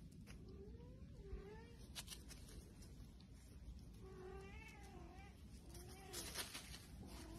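Cats mewing faintly: about five short, high mews spread across the few seconds, with a brief rustling scuffle about six seconds in.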